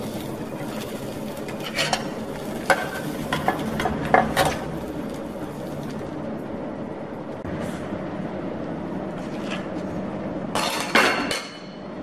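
A metal spoon and wooden chopsticks tap and clink against a small steel frying pan as an omelette is lifted out, over a steady low hiss. A louder, ringing metal clatter comes near the end.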